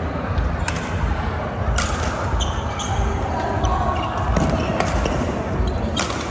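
Badminton rally on a court: several sharp racket strikes on the shuttlecock, one to three seconds apart, over thudding footsteps and short squeaks of court shoes.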